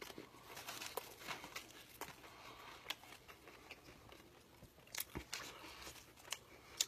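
Faint mouth sounds of chewing a Naked Chicken Chalupa, whose shell is made of chicken, with the paper-and-foil wrapper crinkling as it is handled and a few sharp clicks.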